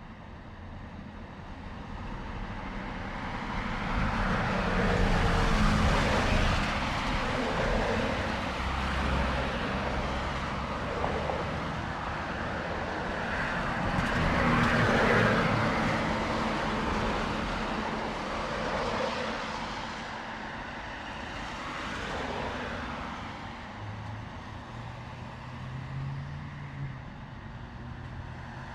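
Main-street traffic: cars passing one after another, their engine and tyre noise swelling up and fading away. The loudest passes come about five and fifteen seconds in, with a smaller one near the end.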